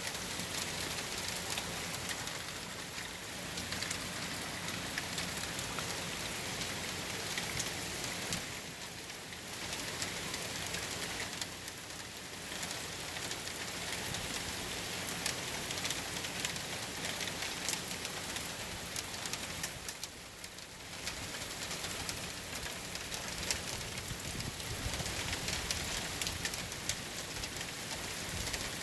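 Hurricane rain falling steadily and pattering on surfaces, with many separate drops, in the calm of the storm's eye. It eases briefly three times.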